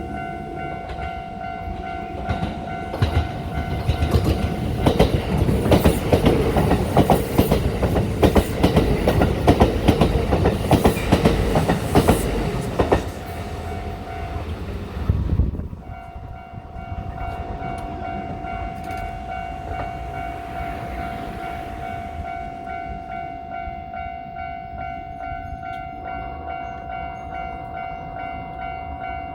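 A Japanese level-crossing alarm rings steadily while a Kintetsu Nagoya Line electric train passes over the crossing from about 3 to 13 seconds in, its wheels clacking rapidly over the rail joints. The alarm stops briefly after the train passes, then rings again at about 16 seconds.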